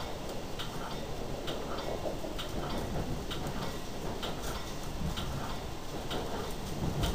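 Running noise inside a moving commuter train coach: a steady rumble with a faint regular ticking about once a second and a heavier bump near the end.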